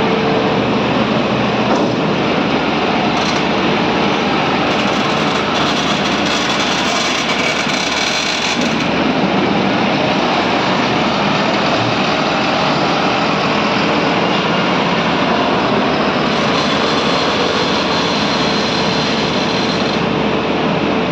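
Tractor diesel engine running steadily under load while it works a front-mounted loader, with a faint steady whine in the noise.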